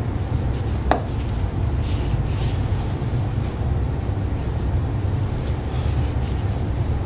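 A cloth towel rubbing over a plastic headlight lens in short wiping strokes, over a steady low rumble. There is one sharp click about a second in.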